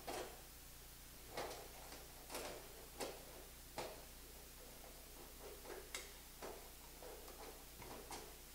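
Clecos being worked with cleco pliers into drilled holes in the aluminium elevator skin and hinge, giving a string of sharp, irregular metallic clicks with a few fainter ones later on.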